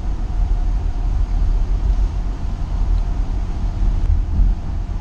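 Cargo van driving, heard from inside the cab: a steady low rumble of engine and road noise.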